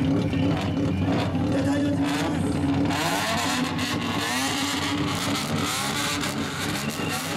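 Straight-piped car exhaust at an exhaust-sound contest. It idles steadily, then from about three seconds in is revved, the pitch rising and falling.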